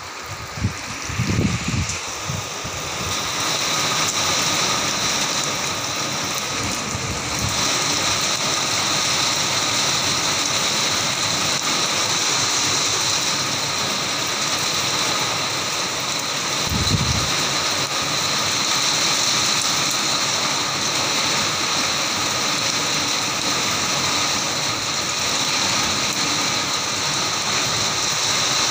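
Heavy rain pouring down steadily and splashing on a flat concrete rooftop, a dense hiss that grows louder a few seconds in.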